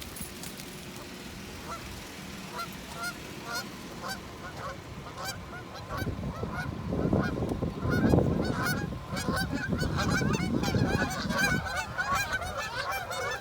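A flock of geese honking in alarm while a dog chases them. The calls are scattered at first and thicken into a dense chorus of overlapping honks from about six seconds in. A low rushing noise runs under the calls from about six to twelve seconds in.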